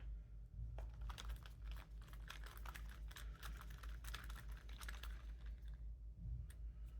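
Hex bit unscrewing a small hex screw from a padlock body, making a run of faint, irregular small clicks and scrapes as it turns.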